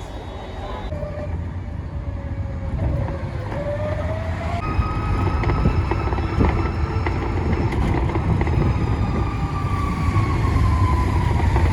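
A motor vehicle running with a steady low rumble; its engine tone climbs briefly, then falls slowly over several seconds as it changes speed.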